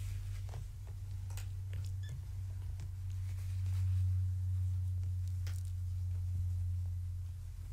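Kittens playing on a blanket, giving scattered light taps and clicks over a steady low hum that swells a little partway through.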